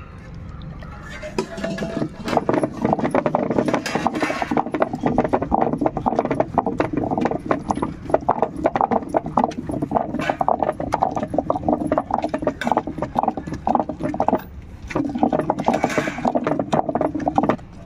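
Heavy cylindrical granite grinding stone turned and rocked by hand in a granite mortar, crushing roasted seeds and greens with a little water: a fast, uneven run of stone-on-stone knocks and gritty scraping, with a brief pause about three-quarters through.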